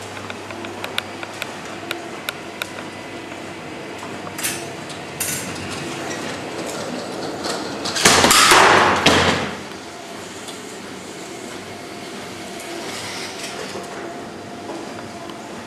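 Rube Goldberg contraption parts clicking and knocking on a worktable: a quick run of small clicks, two louder knocks, then a loud scraping rush lasting about a second and a half, about eight seconds in.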